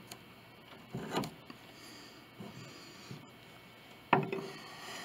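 Steel ruler and pencil handled against the piano's wooden case and soundboard while measuring: a soft rubbing knock about a second in, then a sharp tap about four seconds in with a brief metallic ring after it.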